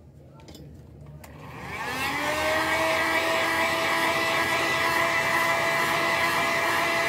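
A couple of clicks, then a handheld electric heat gun's fan motor spins up over about a second with a rising whine and settles into a steady rush of hot air with a hum.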